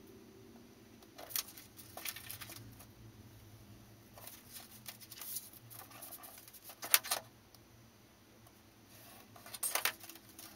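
Hobby knife blade scratching through cardstock on a cutting mat in a series of short strokes, with paper rustling as the cut pieces are handled and pulled apart; the loudest stroke comes about two-thirds of the way through.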